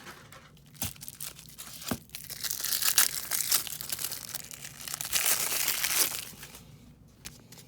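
Crinkling and tearing of a trading-card pack's wrapper as it is pulled open by hand, with a couple of sharp clicks early on and a long stretch of crackling that ends a second or so before the end.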